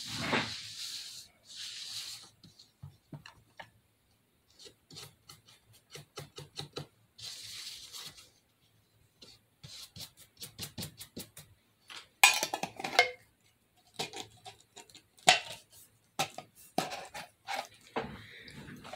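Scattered light clicks, taps and rubbing of crafting supplies being handled on a tabletop, including a small glass jar, with a couple of short stretches of soft rustling.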